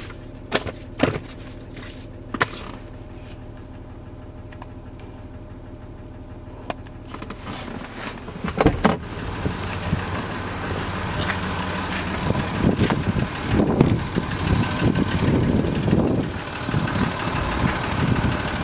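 Land Rover Discovery 3's 2.7-litre TDV6 V6 diesel engine idling: a steady hum, quieter at first and louder and noisier from about nine seconds in. Paper handling clicks near the start, a sharp knock about nine seconds in, and irregular thumps later.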